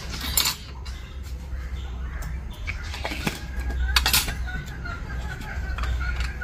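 Small plastic spice containers being handled: a few sharp clicks as the lids are snapped open and shut, the loudest about half a second and four seconds in.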